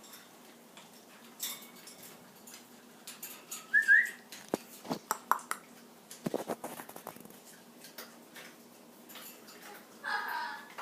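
Pet parrot making small sounds: a short rising whistle about four seconds in, scattered clicks and taps, and a brief call near the end.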